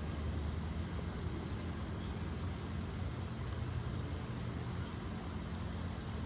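Steady low rumble of distant road traffic, even in level throughout.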